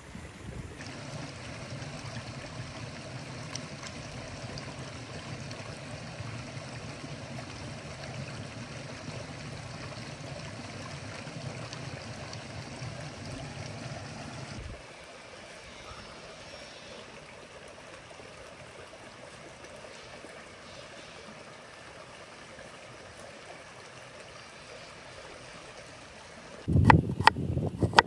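Water of a stream running steadily, quieter from about halfway through. A run of sharp knocks starts near the end.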